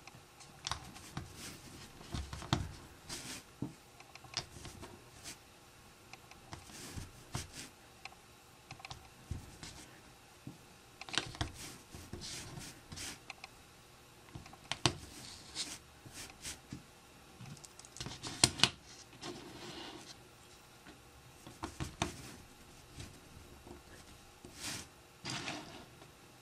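Small plastic Lego bricks being handled and pressed together on a tabletop: irregular light clicks and taps, a few of them sharper.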